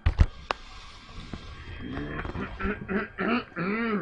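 Two heavy knocks and a click as an acoustic guitar is grabbed and handled. From about halfway in, a person giggles in short bursts that rise and fall in pitch.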